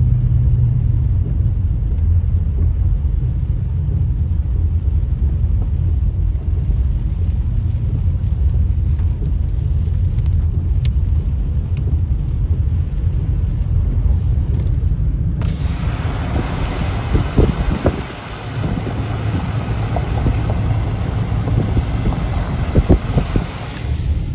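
Car cabin noise while driving on a wet road: a steady low rumble of engine and tyres. About two-thirds of the way through, a loud rushing hiss starts suddenly and cuts off again near the end.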